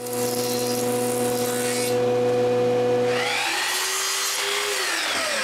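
A thickness planer runs with a steady hum while a small piece of wood feeds through its cutterhead; the cutting hiss eases off about two seconds in. After about three seconds a sliding miter saw takes over, spinning up, crosscutting a thin wood strip and winding down, its pitch rising and then falling.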